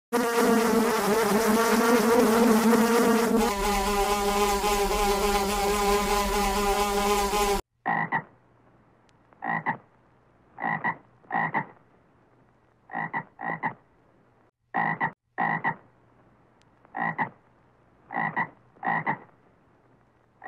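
Animal calls: a sustained, wavering pitched call over a steady hiss for about seven and a half seconds, cutting off abruptly. Then short calls follow, mostly in pairs, every second or so, with silence between.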